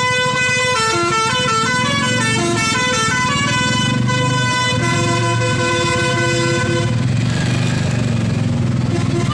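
Basuri 'telolet' multi-tone bus horn playing a melody of held notes that step between pitches, stopping about seven seconds in, over a steady engine hum.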